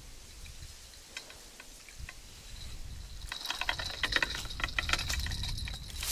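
Rustling and crackling of grass and plants being brushed through by hand, a dense run of sharp clicks starting about halfway through, over a low rumble of handling noise.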